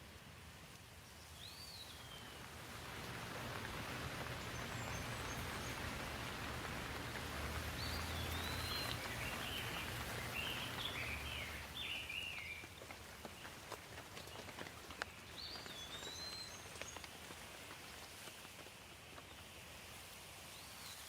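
Steady rain falling on leaves, with single drops ticking. The rain swells, then slowly eases off. A bird chirps now and then, in a quick run of chirps midway.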